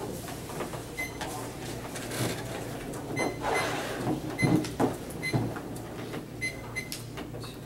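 Papers being gathered and shuffled, with knocks and footsteps as one speaker leaves the lectern and the next takes his place, loudest about halfway through. Several short, high electronic beeps are scattered through it.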